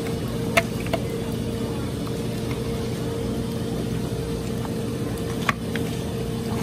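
Whelk shells clicking and knocking together as they are picked from a pile, a few sharp clicks about half a second, one second and five and a half seconds in, over a steady background hum with a held tone.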